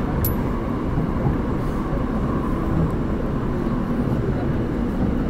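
Seoul Metro Line 5 subway train running between stations, a steady low rumble heard from aboard the carriage.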